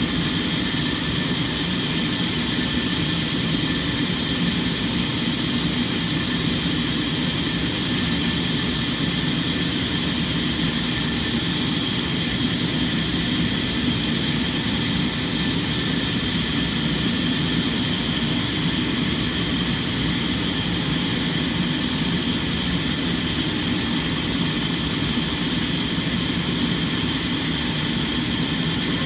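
Sawmill machinery running steadily: a constant low drone with a steady high whine over it, never changing in level.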